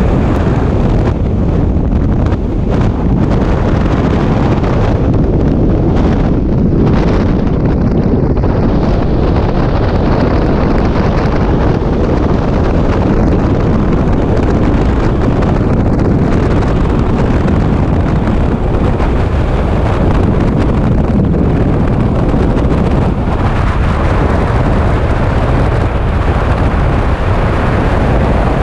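Loud, steady wind rush of skydiving freefall buffeting the helmet camera's microphone.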